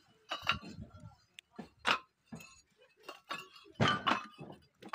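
Fired bricks clinking and knocking against each other as they are lifted off a kiln stack and piled onto a wheelbarrow: a handful of sharp, ringing clinks, roughly one every second.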